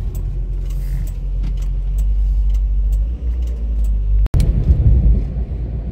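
Renault 12 engine running steadily while driving, heard from inside the cabin as a low hum with road rumble. The sound drops out for an instant a little past four seconds in, and the rumble is louder after it.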